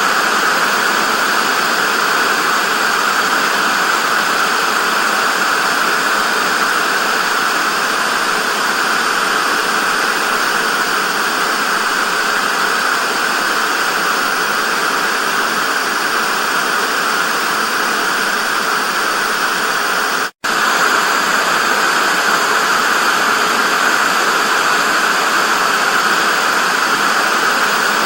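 Television static: a steady, even hiss, strongest in the middle range and thin in the bass. It drops out for an instant about twenty seconds in.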